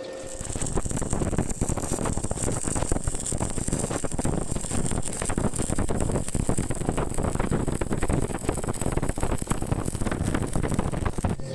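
Stick (SMAW) welding arc crackling steadily as an electrode burns along the joint; it starts suddenly as the arc is struck and cuts off shortly before the end.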